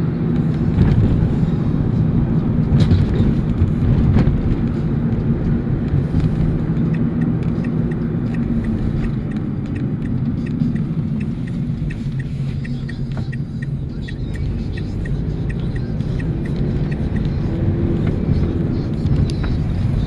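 Engine and road noise inside a moving van's cabin: a steady low rumble, with a run of light, evenly spaced ticks for several seconds in the middle.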